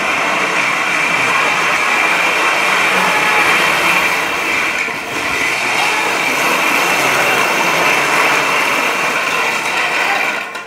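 Filament-spool wheels of a wooden go-kart rolling fast over a concrete floor, making a loud, steady rolling rumble. It dips briefly about halfway through and stops suddenly at the end as the cart halts.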